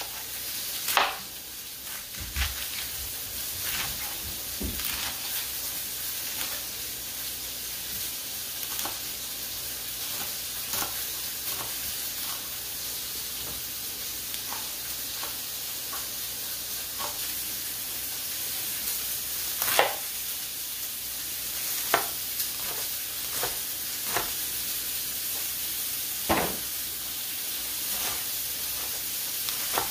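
Steaks sizzling away in a pan, a steady hiss, with a chef's knife chopping lettuce on a plastic cutting board: scattered sharp knocks of the blade on the board, the loudest of them louder than the sizzle.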